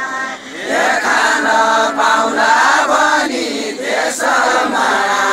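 A group of voices singing a Deuda folk song together: a slow, chant-like line with notes held for about a second at a time.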